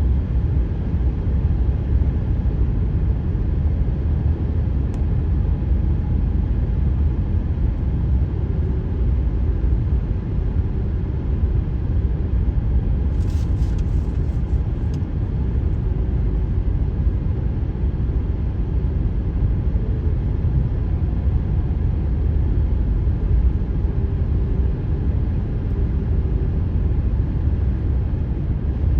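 Car tyres running at highway speed on freshly laid asphalt, a steady low road rumble with a faint humming tone that comes and goes: the 'ghost noise' that cold-laid pavement which has not yet settled makes under the tyres.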